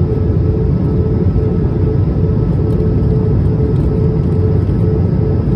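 Jet airliner cabin noise from a window seat: steady rumble of the engines and airflow, with a faint steady hum tone over it.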